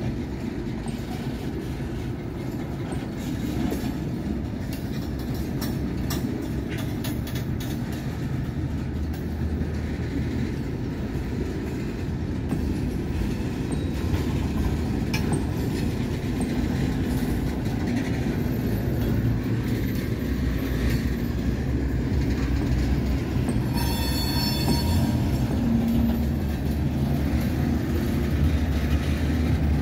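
Loaded freight gondola cars rolling past on steel wheels: a steady low rumble of wheels on rail, slowly getting louder. About three-quarters of the way through comes a brief high wheel squeal.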